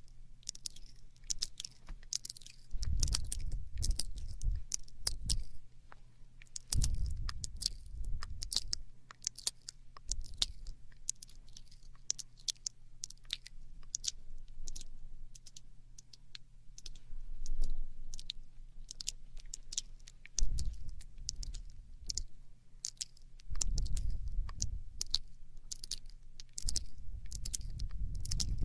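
Close-miked wet mouth sounds: a dense, irregular run of sharp clicks and smacks. Low rumbling pushes on the microphone come in several times.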